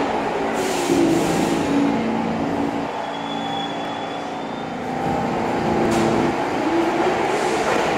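R46 subway train moving along the platform: steady wheel-on-rail noise and traction-motor whine. The whine's pitch falls about a second in and rises again near the end as the train picks up speed.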